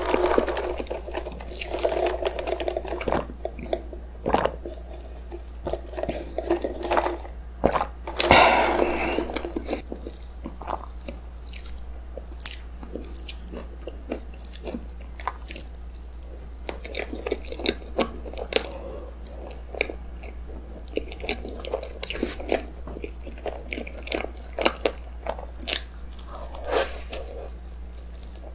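Close-miked chewing and wet mouth sounds of soft, cream-filled roll cake being eaten: many small sticky clicks and smacks, with a louder noisy burst about eight seconds in.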